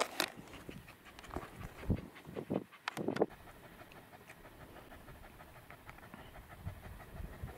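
A dog panting steadily, with a few thumps of footsteps in the first three seconds.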